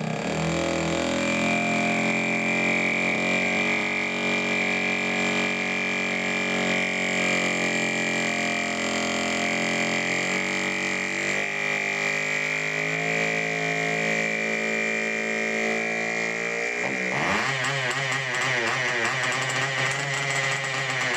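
A Cox .049 model engine converted to diesel, spun on its small generator rig while being started, makes a steady high whine with a strong tone near 2 kHz as the compression is lowered to help it start. About 17 seconds in, the pitch begins to waver up and down unevenly.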